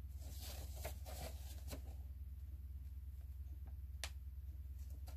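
Quiet rustling of a paper instruction leaflet as it is handled and turned over, with a single sharp click about four seconds in, over a steady low hum.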